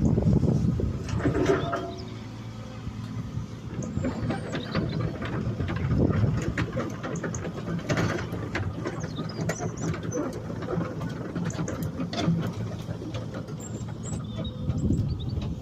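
Excavator at work: its engine running steadily under repeated metal clanks and squeaks from the machine's moving parts.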